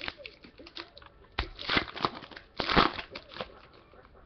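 Foil wrapper of a Topps Chrome football card pack being torn open and crinkled by hand, in a few crackling bursts, the loudest about one and a half and two and a half seconds in.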